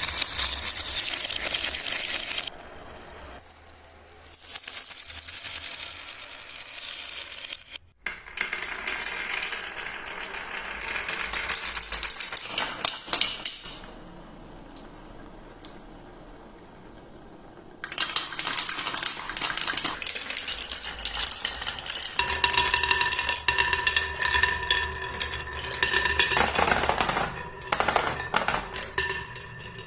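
Marbles rolling and clattering down a wooden HABA marble run in spells of rapid clicking and rattling, with quieter gaps between runs. Steady tones sound under the clatter through the second half.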